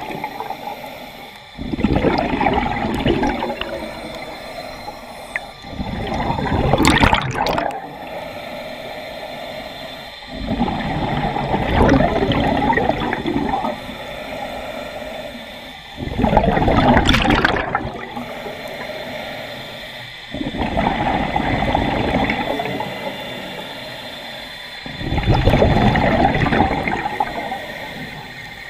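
Scuba diver breathing through a regulator underwater: six long gushes of exhaled bubbles, one about every four to five seconds, with a quieter stretch between each.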